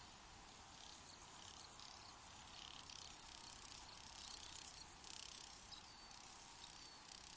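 Faint outdoor nature ambience: soft, uneven high chirring that swells and fades, with a couple of short high chirps in the second half.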